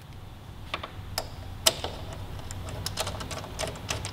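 Hand ratchet clicking as it spins a nut onto the upper shock-mount bolt. A few separate clicks come first, then quicker, uneven runs of clicks from about halfway through.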